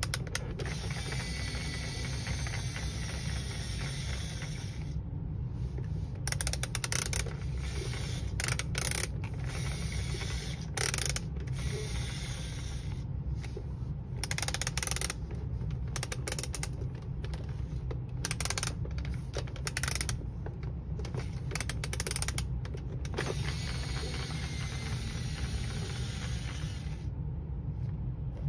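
Plastic gears of a Fisher-Price Octonauts Gup-A toy clicking like a ratchet as its propeller crank is hand-turned to wind the winch reel, over a steady low hum.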